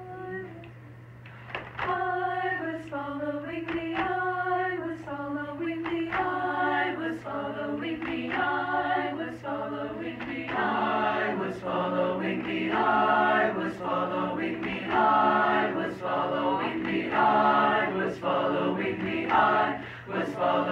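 Mixed a cappella choir of young male and female voices singing in close harmony. A few voices begin about two seconds in, and more parts join around ten seconds in for a fuller sound. A steady low hum and a few sharp clicks sit underneath.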